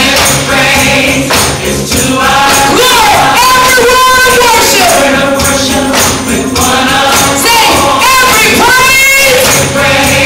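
Gospel praise singing with a tambourine keeping the beat, a lead voice with wide vibrato over the music.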